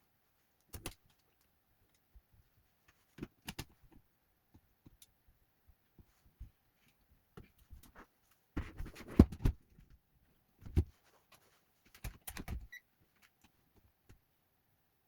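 Scattered clicks, taps and light knocks of small tools and laptop parts being handled during a fan replacement, with a busier clatter about nine seconds in.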